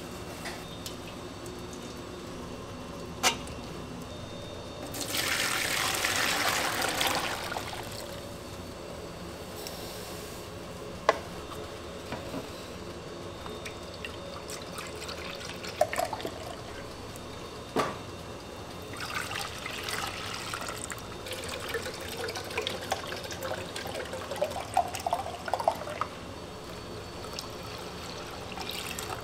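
Liquids being poured in a kitchen: a loud splashing pour about five seconds in, a few sharp knocks of utensils, then a longer pour into a container from about two-thirds of the way in, its pitch rising as the container fills.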